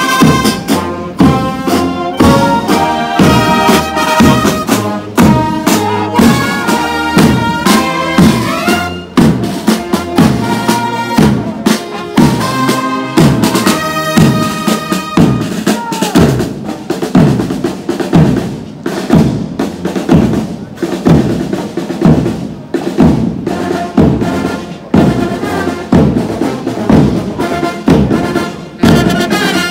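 Military brass band playing: trombones, trumpets and sousaphones carry the tune over field drums beating a steady rhythm.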